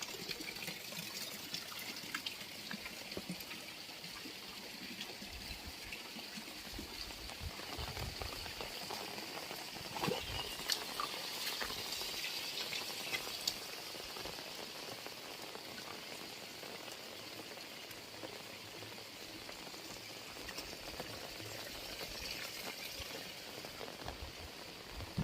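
Heavy rain falling steadily, with scattered drops pattering and a few soft low thuds.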